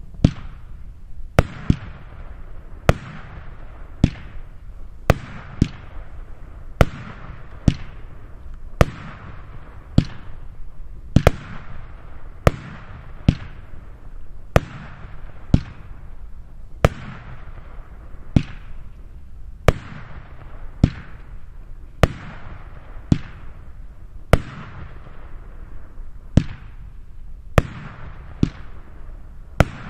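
Firework battery (Profi Line 8.14) firing shot after shot, a sharp bang about once a second, each followed by a fading hiss.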